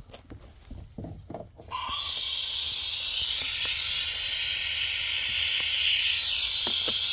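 A few light knocks, then about two seconds in a steady hiss of gas rushing out of an opened valve starts and keeps going: the new gas line being purged of air.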